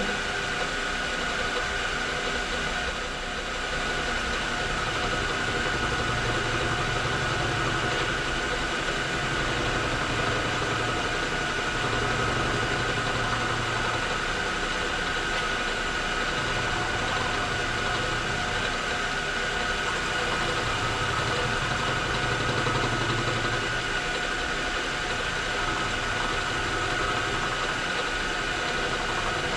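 Machine tool running steadily with a constant high whine, and a low hum that swells and fades every few seconds.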